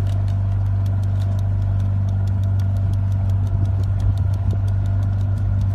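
Boat engine running steadily with an even low hum and a faint regular ticking of about four to five ticks a second.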